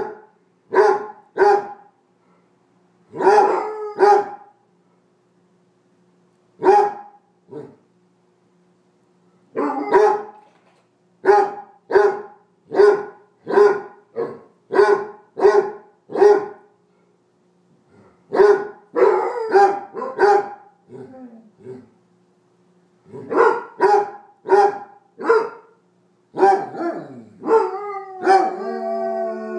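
Basset hounds play-barking: deep single barks and quick runs of three or four, with short pauses between. Near the end the barks stretch into a long howl that slides down in pitch.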